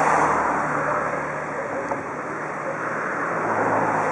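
DR Class 18 201 steam locomotive standing under steam, giving off a steady rushing hiss of steam that swells near the start and again near the end.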